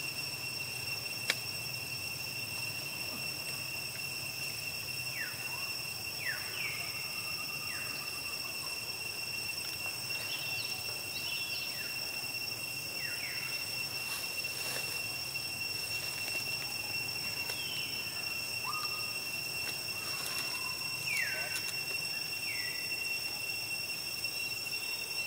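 Steady high-pitched drone of insects, several tones held together without a break. Short chirps that fall in pitch come through now and then, in small clusters.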